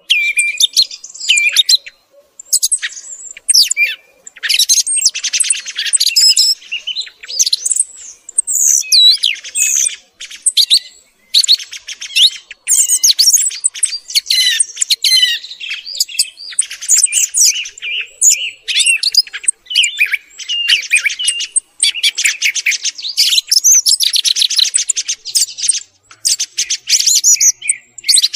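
Song thrush singing: a continuous run of loud, varied whistled and trilled phrases with only brief pauses between them.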